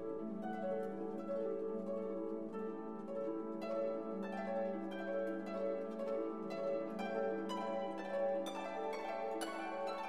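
Instrumental background music of plucked, harp-like string notes over a held low note, the plucking growing busier and brighter in the second half.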